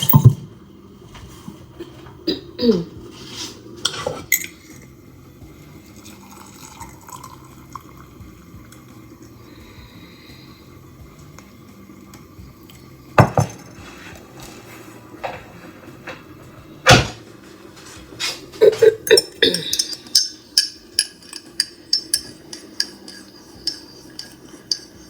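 Crockery and cutlery clinking and knocking: a few scattered clinks at first, then a run of quick clinks, about two a second, in the last several seconds, over a faint steady hum.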